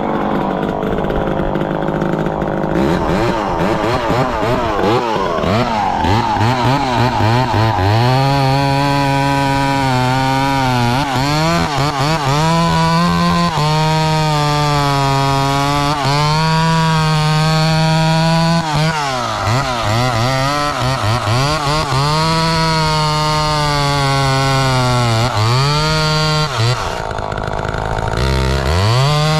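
Chainsaw engine revving up over the first several seconds, then running at high speed through wood, its pitch dipping briefly a few times under load or as the throttle eases and then recovering.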